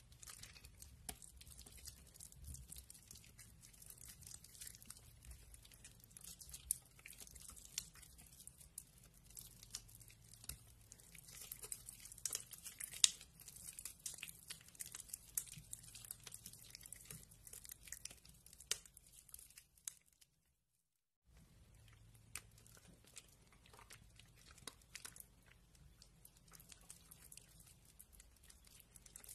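Hands squeezing, tearing and crumbling soft, water-soaked bar soap: a dense crackling and crunching with sharp snaps as the soggy soap breaks apart. The sound breaks off completely for about a second about two-thirds of the way through, then resumes.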